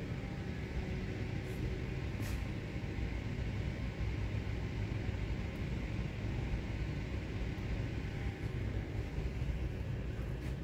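Steady low rumble and hum of an empty underground metro platform deep in a concrete tunnel, with no train passing.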